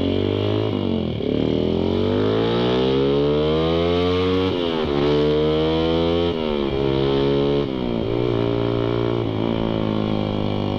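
Suzuki Satria FU 150's carburetted single-cylinder engine pulling away through the gears. The revs climb and drop back four times as it shifts up, then hold steadier near the end.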